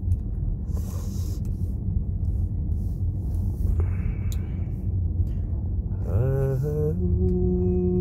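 Steady low rumble of a car's engine and tyres heard from inside the cabin while driving. About six seconds in, a long hummed note begins, wavering at first and then held steady.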